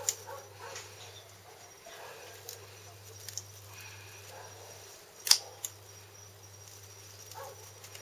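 Scissors snipping plastic anti-bird netting: a few sharp, separate clicks, the loudest about five seconds in, over a low steady hum.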